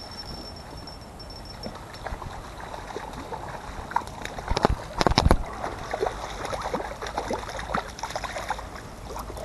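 A hooked brown trout splashing and thrashing at the surface of shallow stream water as it is played in and netted, with a few sharp knocks about five seconds in.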